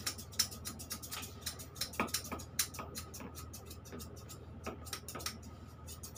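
Small grooming scissors snipping a long-haired cat's fur: quick, irregular snips, a few sharper than the rest, over a steady low hum.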